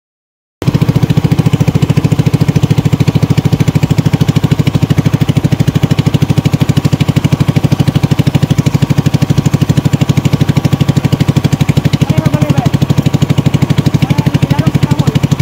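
Small boat's engine running steadily with a fast, even pulsing beat; it cuts in suddenly just after the start.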